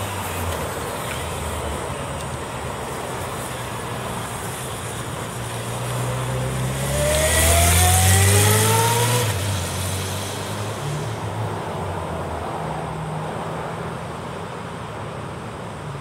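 Honda CBR1100XX Super Blackbird's inline-four engine running as the motorcycle rides past. It rises in pitch as it accelerates and is loudest about eight seconds in, then fades as the bike pulls away.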